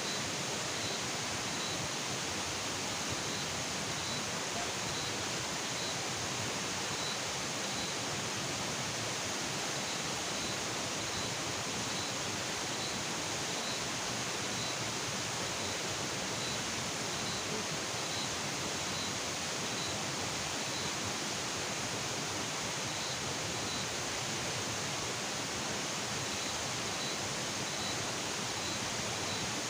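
Steady, even rushing hiss of night-time outdoor background, with a faint high chirp repeating about once a second.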